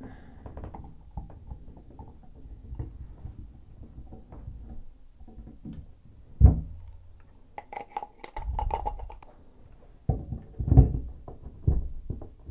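Hands fitting chrome shower trim against a tub surround: small metal clicks and scrapes, a sharp knock about six and a half seconds in, a burst of rattling clicks around eight seconds, and several more knocks near the end.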